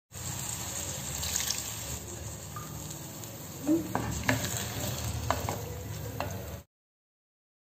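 A spatula stirring okra and tamarind liquid in a clay pot over the flame, with a low sizzle and a few sharp knocks of the spatula against the pot in the second half. The sound cuts off suddenly near the end.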